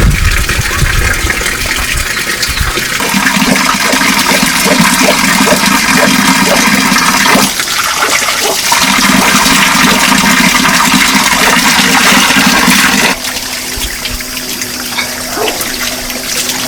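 Loud, steady rushing water. A lower, pulsing sound joins it twice, for about four seconds each time, at about four or five pulses a second.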